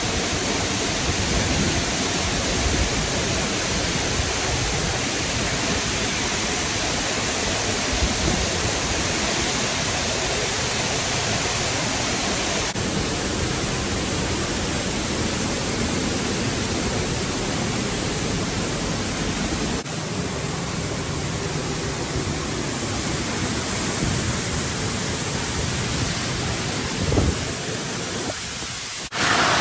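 Waterfall rushing, a steady, loud roar of falling water, with sudden small changes in tone a few times where the footage is cut between clips.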